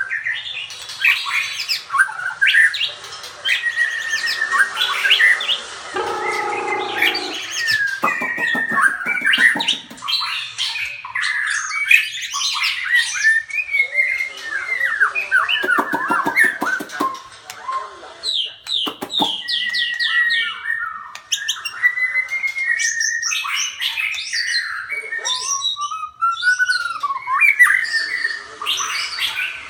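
Birds calling and squawking loudly over one another, with quick rising and falling chirps, trills and harsh squawks.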